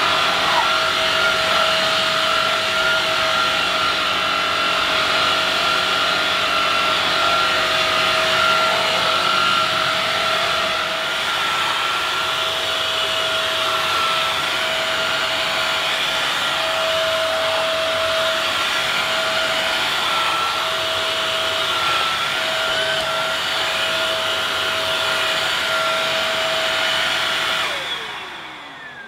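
Nilfisk Combi mains-powered wet-and-dry floor washer running while vacuum-washing a tiled floor: a loud, steady motor whine over a hiss. About a second before the end it is switched off and the motor spins down with a falling whine.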